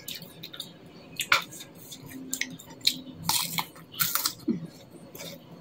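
Crunchy bites and chewing of a crisp raw green pear slice coated in chili sambal, heard close to the mouth as irregular sharp crackles, thickest after about three seconds in.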